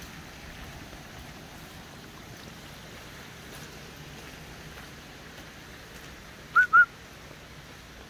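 Two short, loud whistled notes in quick succession, each rising and falling in pitch, about two-thirds of the way through, over a steady background hiss.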